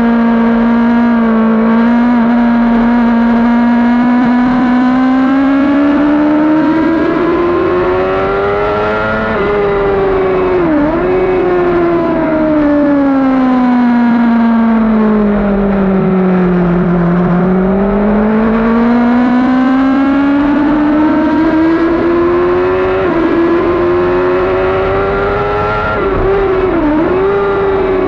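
2012 Yamaha R6's inline-four engine running at high revs on track, heard from onboard: its pitch climbs for several seconds, dips briefly about ten seconds in, falls steadily for several seconds as the bike slows, then climbs again with another quick dip near the end.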